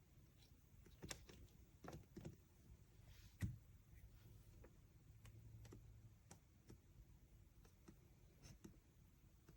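Near silence broken by a few faint, scattered clicks and taps, with one slightly louder knock about three and a half seconds in.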